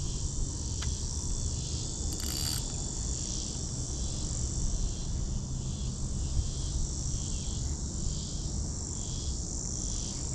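Steady, high-pitched chorus of insects droning without a break, over a low rumble of wind on the microphone, with a brief hiss about two seconds in.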